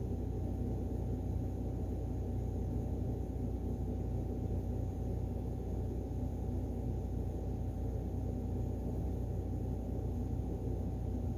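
Steady low hum and rumble with a faint constant tone above it, unchanging throughout: continuous background machine or room noise.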